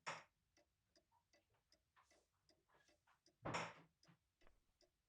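Clock ticking steadily and faintly, about two and a half ticks a second. Two brief louder noises break in, one right at the start and one about three and a half seconds in.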